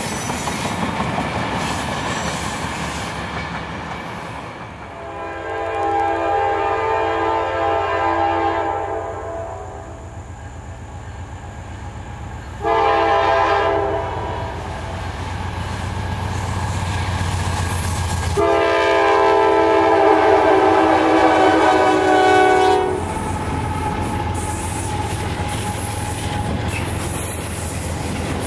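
Freight cars rolling past with wheel clatter, then a Norfolk Southern diesel locomotive's air horn sounds three blasts, long, short, long, over the steady rumble of the train.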